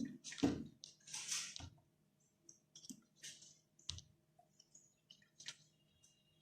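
Scattered faint clicks and brief rustles of hand tools being handled at the workbench during bonding of a new flat cable to the LCD panel's glass. About a dozen irregular ticks and scrapes over a low steady hum.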